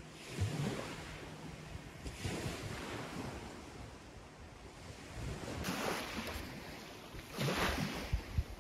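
Small waves washing onto a gravel lakeshore, with wind buffeting the microphone; the wash swells and eases every couple of seconds.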